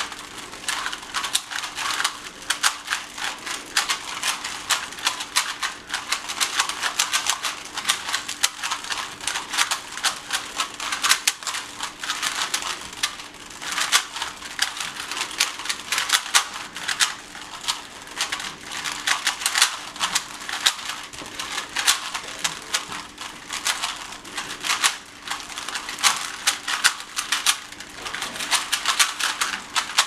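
Several Rubik's Cubes being turned rapidly at the same time in a speed-solving race: a dense, continuous stream of plastic clicking as the cube layers are twisted.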